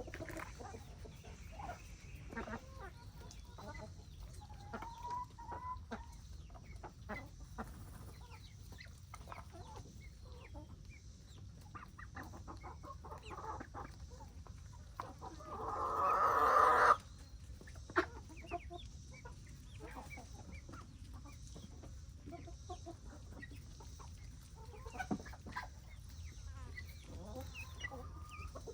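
Chickens clucking, with many small clicks of pecking at feed. About halfway through a rooster crows once: a single crow of under two seconds that swells and cuts off sharply, the loudest sound here.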